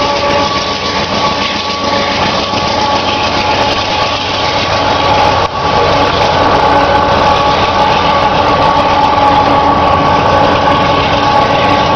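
GE AC4400CW diesel-electric locomotives of a long container train running past close by: a steady engine rumble and wheel noise with several steady whining tones over it. The sound dips briefly about halfway through.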